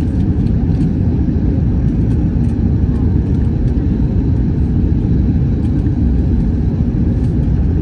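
Steady low rumble of an Airbus A321 jet airliner, its engine and air noise holding at an even level.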